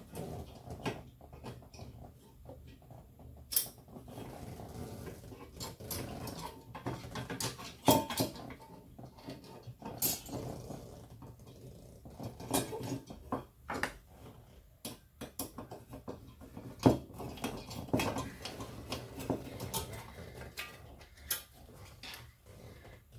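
Irregular clicks, taps and scrapes of parts being handled while a computer power supply is put back together, with a few sharper knocks scattered through.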